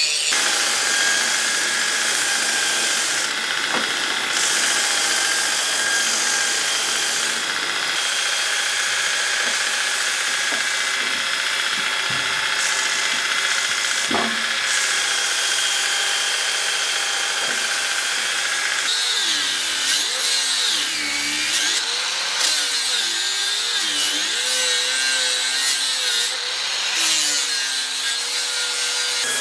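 Power grinders working steel: a steady, loud grinding hiss with a high motor whine. Past the middle, the motor pitch repeatedly sags and recovers as a grinder works into the steel.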